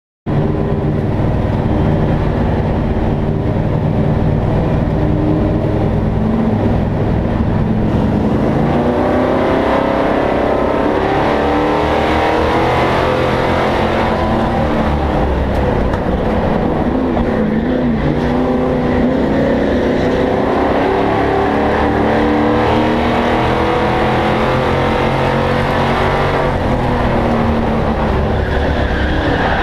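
Short-track race truck's engine heard from inside the cab at full racing load. It starts suddenly just after the beginning, then repeatedly climbs in pitch under acceleration and drops back as the driver lifts off.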